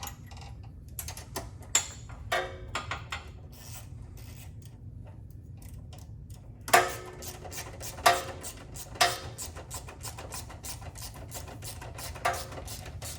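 Hand ratchet wrench clicking in runs as a sway bar mounting bolt is tightened, with a few louder knocks partway through, over a steady low hum.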